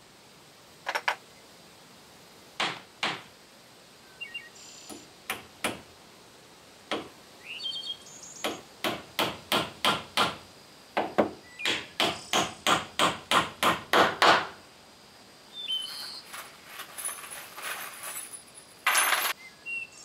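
Hammer tapping small wooden blocks into place along a timber brace. A few scattered knocks come first, then a run of about fifteen quick blows, roughly three a second. Short bird chirps sound between them, and a brief louder scrape comes near the end.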